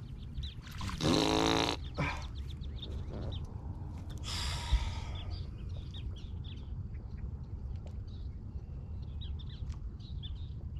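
A man's short wordless grunt about a second in, then a brief burst of splashing and thrashing with a sharp click about four seconds in as a hooked bass is landed. Faint high chirps go on through the rest over a low steady rumble.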